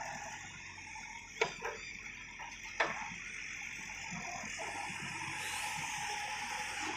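Excavator working with a steady mechanical noise, broken by two sharp knocks about a second and a half apart.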